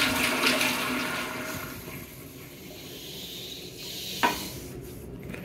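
Toilet flush finishing: the rush of water into the bowl tapers off over about two seconds to a quieter running hiss. A single short, sharp chirp comes about four seconds in.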